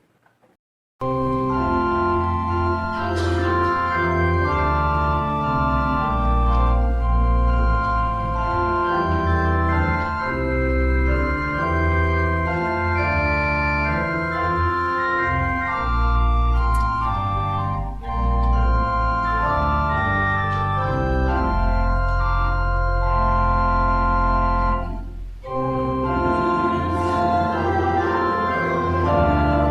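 Church organ playing slow, sustained chords, starting about a second in, with a short break about 25 seconds in.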